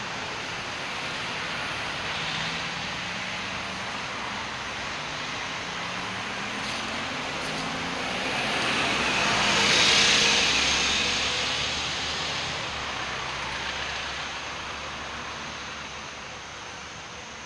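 Road traffic: steady tyre and engine noise, with a car passing close that swells to its loudest about ten seconds in and then fades.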